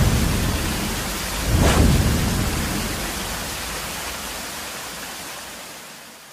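Intro sound effect: a loud rushing noise that swells into a whoosh about one and a half seconds in, then dies away steadily and fades out at the end.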